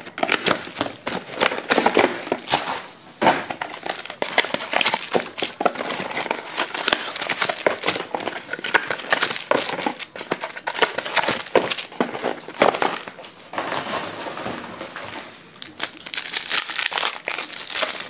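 Cellophane and plastic pack wrapping crinkling and crackling in irregular spurts as a sealed box of football trading cards is opened by hand and its packs unwrapped.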